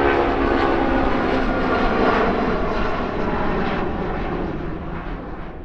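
Jet airliner's engines rumbling as the aircraft passes, the sound dying away near the end.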